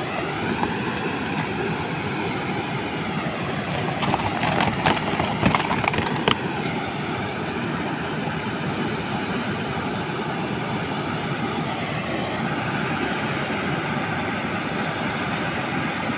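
Steady rush of a shallow river running over rocks. For a couple of seconds, about a third of the way in, a plastic bag crinkles and rustles as it is handled.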